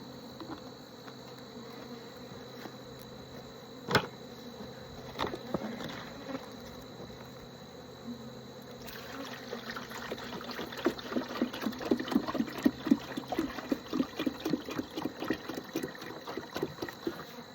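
Honeybees buzzing around an open hive. From about halfway, a quick run of gulps is heard as sugar syrup is poured from a jug into the hive's feeder.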